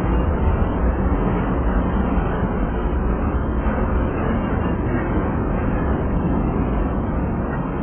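Freight train of empty centerbeam flatcars rolling steadily past, its steel wheels on the rails making a continuous low rumble.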